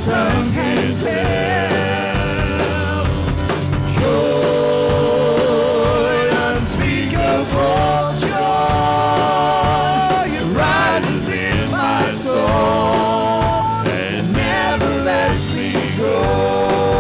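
Praise-and-worship music: a band playing with singing, long held sung notes with vibrato over a full, steady accompaniment.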